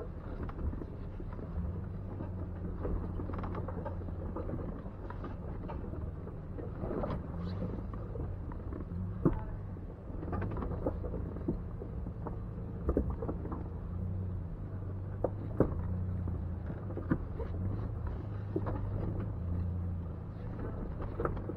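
Jeep Wrangler's engine running at low revs, its pitch stepping up and down as it crawls over a rocky trail, with scattered sharp knocks and clunks from rocks under the tyres and the suspension.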